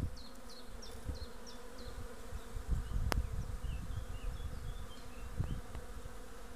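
A newly hived swarm of honeybees buzzing in a steady hum at the hive entrance. A single sharp click about halfway through.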